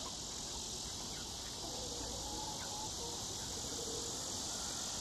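Steady, high-pitched chorus of insects such as crickets, continuous and unchanging.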